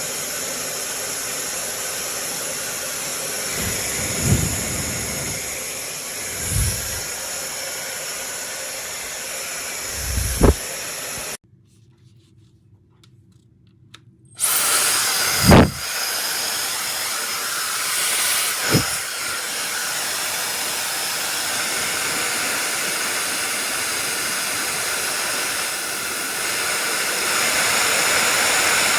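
YAPOY high-speed hair dryer blowing with a steady rushing hiss. It is switched off about 11 seconds in and back on about three seconds later, and it is a little louder near the end. A few short low thumps sound over it.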